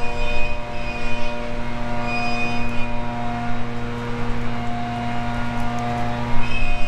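Distant approaching freight train led by an EMD SD70ACE diesel locomotive: a steady drone with a low hum and several held tones.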